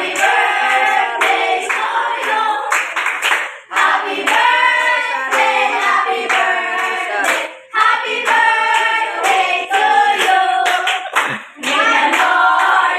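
A group of women singing together, with hand claps keeping the beat. The song pauses briefly twice between phrases.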